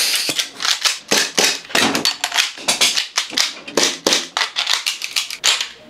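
Gas blowback airsoft pistols being fired and cycled: a quick, uneven run of sharp pops and slide clacks.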